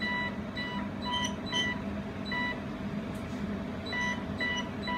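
Jewelry laser welding machine giving about ten short electronic beeps at uneven intervals, over a steady low hum.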